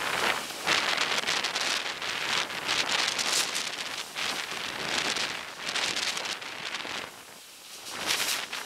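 Typhoon Haiyan's wind and driving rain, coming in gusts that rise and fall every second or so; the noise drops off briefly about seven seconds in, then gusts up again.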